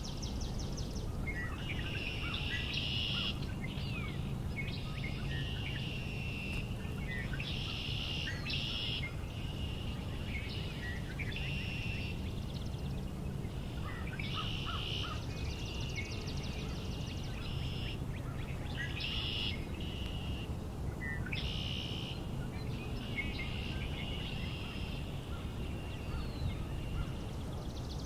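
Morning chorus of marsh songbirds, with red-winged blackbirds among them, singing short song phrases of about a second each, one after another, over a low steady background rumble.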